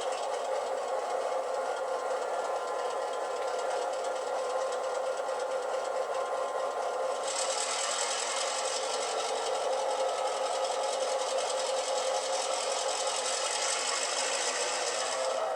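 Recorded EMD diesel engine sound from a LokSound v5 decoder played through tiny sugar-cube speakers in a model GP9 locomotive, running under throttle. About halfway through, the sound turns brighter and hissier and grows slightly louder.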